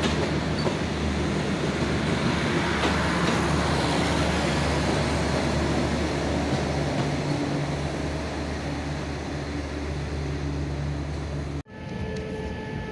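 State Railway of Thailand passenger coaches rolling past, the wheels and running gear making a steady rumble with a low drone, slowly fading as the last coach goes by. Near the end it cuts off suddenly to a quieter steady engine hum.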